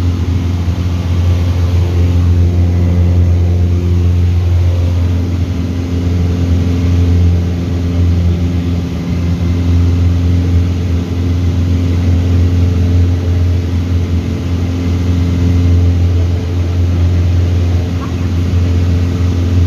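Light aircraft's piston engine and propeller droning steadily and loudly, a deep hum with higher engine tones above it.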